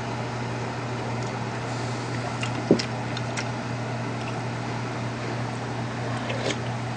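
Steady low machine hum, with a few faint clicks of a metal spoon against an earthenware pot and dishes, and one short thump about two and a half seconds in.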